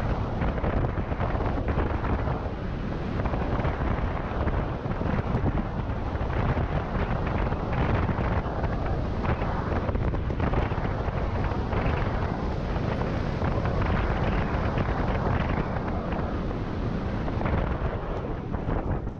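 Steady wind noise buffeting the camera microphone on an electric scooter riding at speed, a dense rumbling rush with no clear motor tone.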